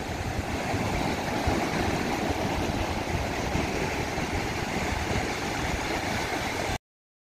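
Steady rushing spray of running water, as sand is rinsed off, stopping abruptly near the end.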